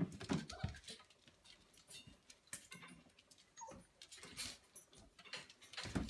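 An animal moving about, making scattered light clicks, taps and rustling, with a couple of brief squeaky sounds.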